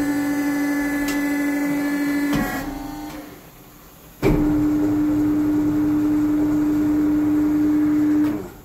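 Electric drive motor of a truck tyre changer turning a clamped steel wheel rim: a steady hum that runs for about two and a half seconds, stops, then starts again about four seconds in and runs for another four seconds.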